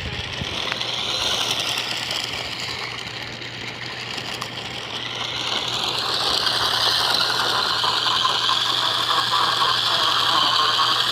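Radio-controlled car driving hard on a slick, icy surface: its motor whines, rising and falling in pitch with the throttle, over the rattle of the chassis and the squealing of its spinning tires. It gets louder about halfway through.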